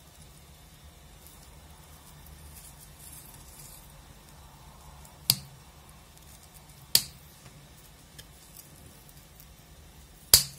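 Scissors snipping through the shoot tips of an azalea during a shaping prune: three short, sharp snips a second or more apart, the last near the end.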